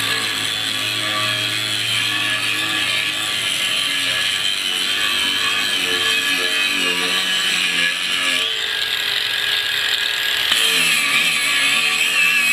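Cordless brushless angle grinder with a diamond cup wheel grinding concrete: a steady high motor whine that wavers in pitch as the wheel loads up against the surface.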